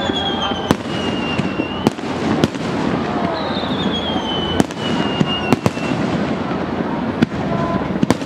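Fireworks bursting in sharp bangs about once a second over steady crowd chatter, with two long whistles that fall in pitch.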